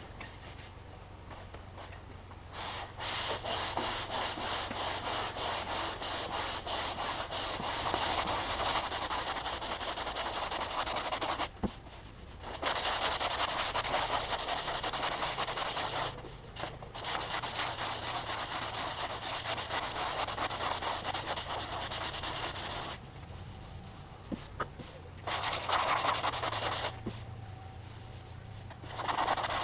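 Hand sanding of Bondo body filler on a car's steel rear fender, sandpaper rasping over the filler to shape the repair's profile. It starts about two seconds in with quick, regular back-and-forth strokes, then goes on in longer continuous passes broken by a few short pauses.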